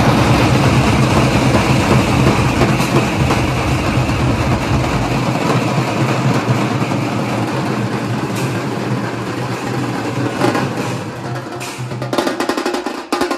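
Hyderabad pad band of stick-beaten drums, large steel-shelled drums among them, playing a loud, dense rhythm together. Near the end the playing thins to separate strokes.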